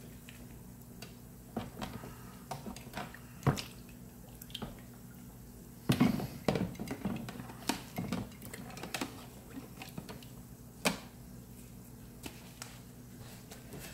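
Aluminum parts on wire hangers being moved about in a plastic bin of caustic soda solution that is stripping their anodizing: irregular splashes, drips and knocks against the bin, busiest about six seconds in, over a steady low hum.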